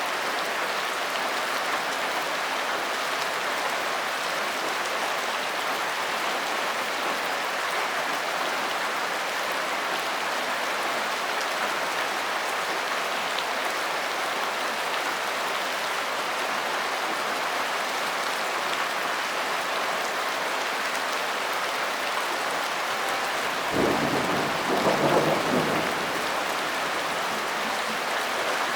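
Steady rain falling in an even hiss, with a brief low rumble of thunder near the end.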